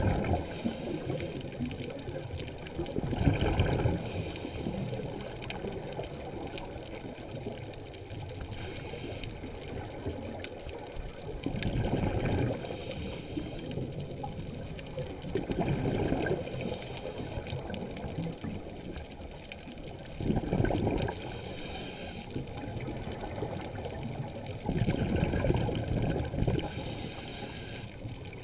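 A scuba diver breathing through a regulator underwater: bursts of exhaled bubbles every few seconds, with short faint hisses of inhalation between them.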